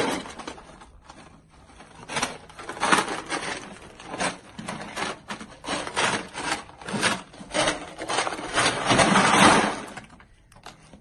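Ice cubes crunching and clattering in a plastic kiddie pool as a husky paws and steps through them, in irregular bursts. The longest, loudest crunching comes near the end as the dog settles down into the ice.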